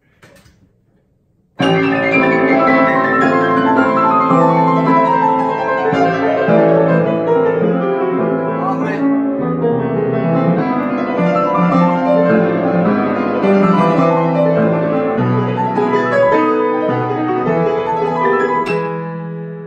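Grand piano played with both hands, starting about a second and a half in. A long descending run falls over the first few seconds, then dense chords and figures follow, and the playing breaks off shortly before the end.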